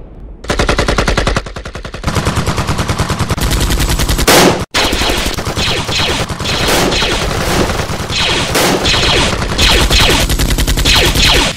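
Rapid automatic gunfire sound effects, shot after shot in long runs, broken off briefly a little under five seconds in.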